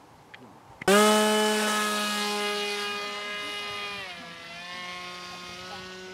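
Electric motor and propeller of a radio-controlled model plane running at high throttle: a loud whine that starts abruptly about a second in and fades gradually, its pitch stepping down about three seconds in and again near the end.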